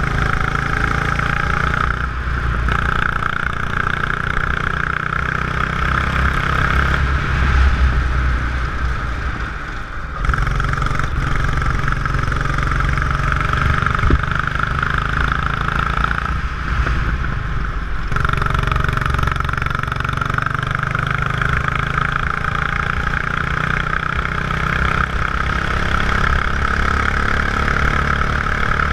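Go-kart engine running at speed, heard from onboard the kart, with a brief dip in loudness about ten seconds in.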